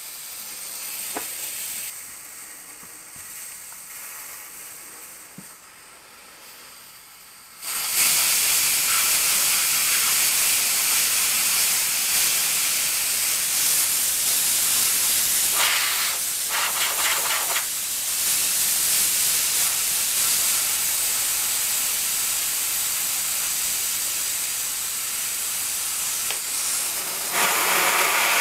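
High-pressure air hissing out of a Hatsan Gladius PCP air cylinder through a screwed-on degassing tool as the cylinder is emptied. A faint hiss at first jumps suddenly to a loud, steady rush about eight seconds in.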